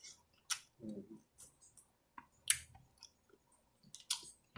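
Close-miked eating sounds: chewing with sharp mouth clicks and smacks, the strongest about half a second in, two and a half seconds in and near the end.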